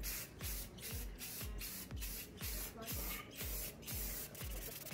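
Aerosol spray can hissing as a light clear coat is sprayed onto raw aluminum panels, fading near the end. Background music with a steady beat plays underneath.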